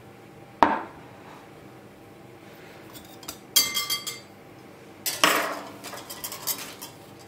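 Wire whisk knocking and clinking against a glass mixing bowl of flour: three separate sharp clinks with smaller taps between them, the one about halfway through ringing briefly like struck glass.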